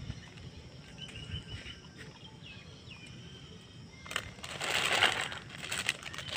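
Small birds chirping faintly, then from about four seconds in a loud crunching rustle made of many small crackles.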